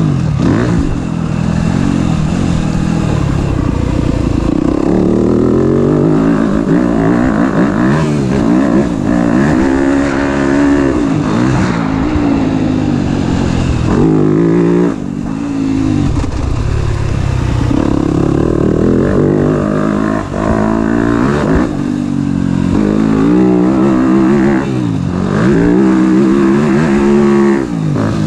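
2021 Yamaha YZ250F's 250cc four-stroke single-cylinder engine, freshly past break-in, under hard riding: it revs up and falls back again and again as the rider accelerates, shifts and rolls off the throttle, with brief throttle cuts about halfway through.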